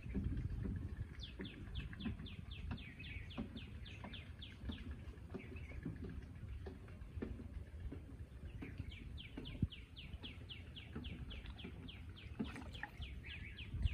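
A bird singing two long runs of quick, repeated down-slurred notes, about four or five a second; the second run starts a little past halfway. Under it, low sloshing of water around a person wading chest-deep.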